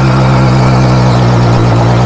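Hero Splendor motorcycle's single-cylinder four-stroke engine running at a steady speed, close up.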